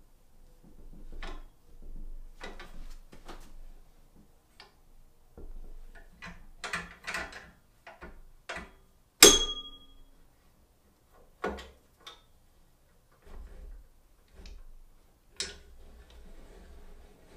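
Scattered metal clicks, knocks and rattles as the Porter-Cable floor drill press's table is swung on its column and clamped in place, with one sharp metal clank that rings briefly about nine seconds in.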